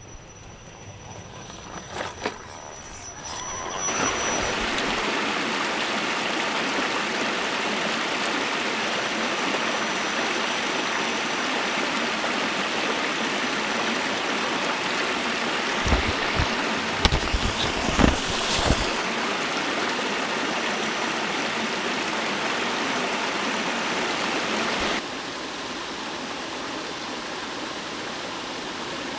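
Small forest stream rushing over rocks, a steady rushing noise. It starts quieter with a couple of clicks, has a few low thumps near the middle, and drops to a softer rush near the end.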